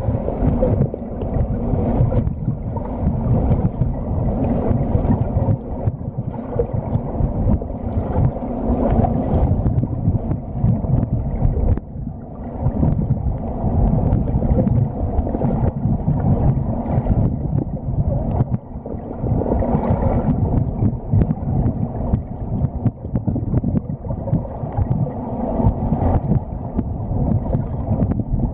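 Muffled churning and rushing of pool water heard underwater, stirred by a child's freestyle kicks and arm strokes; it surges and eases unevenly, with no steady beat.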